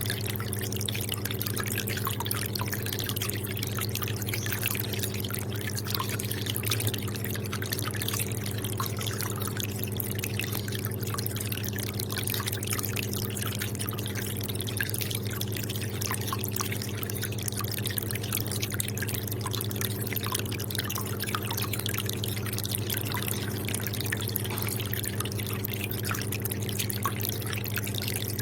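Aquarium water dripping and trickling in many small, irregular drops, over a steady low hum.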